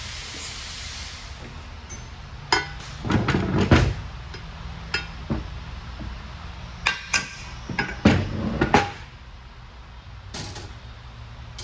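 Metal parts of an Eaton Fuller transmission shift top being handled and set down during disassembly: scattered clinks and knocks in a few clusters, over a steady low hum.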